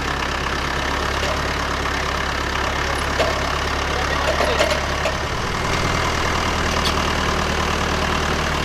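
Farm tractor engine running steadily under load as it pulls a woven-wire fence tight with a stretcher bar. Its note changes about five seconds in.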